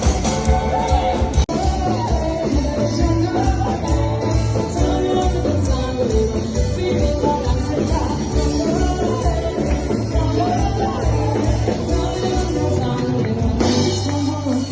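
A band playing with a singer over a steady bass line and drums, with a momentary dropout about a second and a half in.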